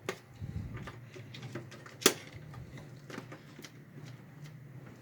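Scattered light clicks and knocks from an SSD and its cables being handled and pushed into place inside a desktop PC case, with one sharp click about two seconds in.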